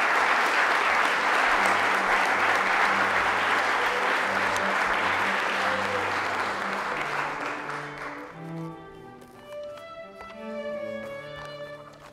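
Audience applauding, fading out after about eight seconds, while instrumental music plays underneath and then carries on alone.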